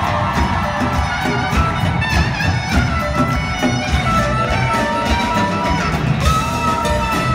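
Live band music: a reedy woodwind solo playing a melody with held notes over drum kit and hand percussion.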